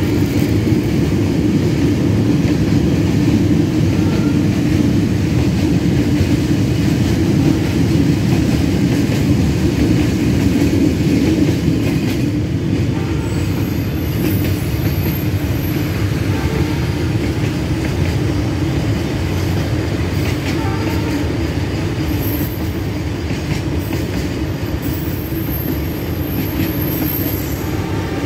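Long freight train rolling past, wagon wheels rumbling and clattering steadily over the rails. A thin, high wheel squeal comes in briefly a couple of times in the second half.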